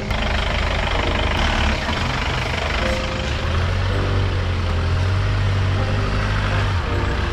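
Mahindra Thar 4x4 engines running steadily at crawling speed as the jeeps climb over rocks and loose stones, with a strong low rumble and a constant rough noise of tyres on stones.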